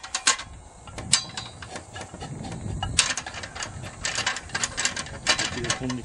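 Stainless-steel screw honey press being handled and assembled: irregular metallic clicks, clanks and rattles as its pressing head and threaded screw are fitted into place.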